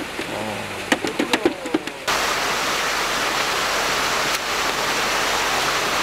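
A few sharp wet slaps and splashes, then, about two seconds in, a steady rush of water pouring and churning in a flounder farm's rearing tank.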